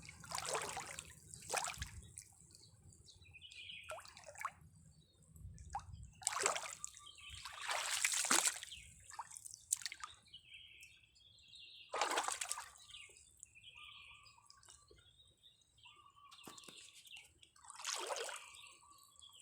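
Water sloshing and splashing in irregular swooshes, about eight of them, each lasting under a second, with quieter gaps between.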